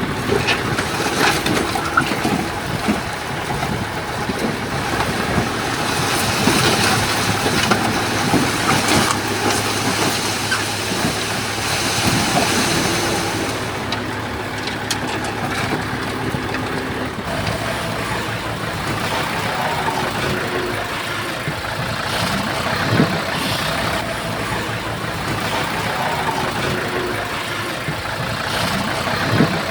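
Diesel engine of a small Komatsu crawler bulldozer running under working load, its pitch shifting a few times, with a few sharp knocks.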